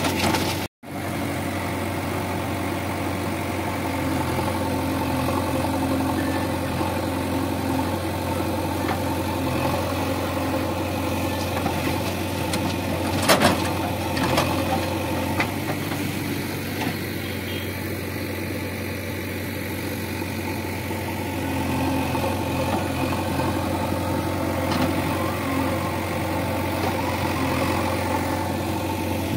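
JCB backhoe loader's diesel engine running steadily, its pitch and load rising and easing as it works the rear bucket to dig soil and dump it into a tractor trolley. A single sharp knock comes about thirteen seconds in.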